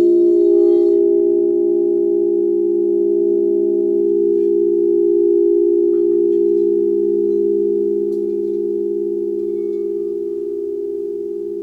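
Several quartz crystal singing bowls ringing together in long, steady, overlapping tones that slowly fade. One of the higher tones dies away about four seconds in.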